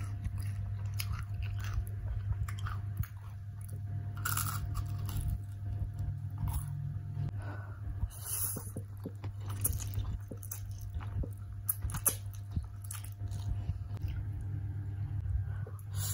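Close-miked eating: crunching and chewing on crispy fried chicken pieces, then slurping and chewing of spicy Korean instant noodles, with short hissy slurps near the middle and again near the end. A steady low hum runs underneath.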